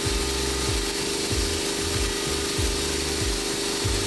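Ingersoll Rand vertical-tank air compressor running loudly and steadily, a dense noise with a steady hum from the motor and pump, switched on by its pressure switch after air was bled from the tank. Background music with a steady low beat plays underneath.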